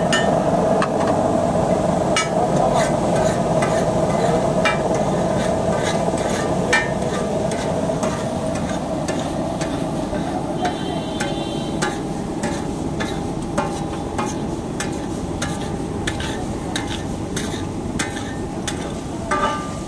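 A metal spatula scraping and clacking on a large flat griddle as spicy onion-tomato masala for egg bhurji is stirred, chopped and pushed into a pile, over a steady sizzle of frying.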